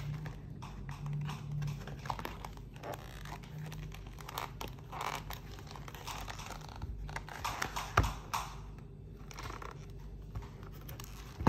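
Stiff cardboard board-book pages being turned and handled: scraping, rubbing and light taps of the thick pages, with a sharp knock about eight seconds in as the book is closed and turned over.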